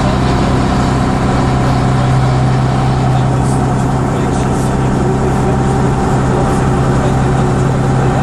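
Inside the saloon of a Bristol RELH6L coach under way, its Leyland O.680 six-cylinder diesel engine drones steadily, together with road noise.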